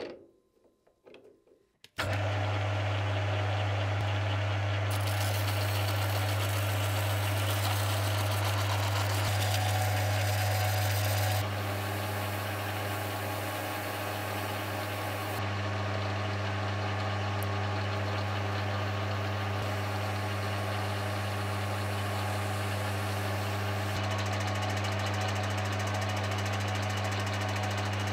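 Small lathe running at a steady speed, a low even hum with a hiss above it, starting suddenly about two seconds in, its chuck spinning a wooden ball knob on a threaded rod.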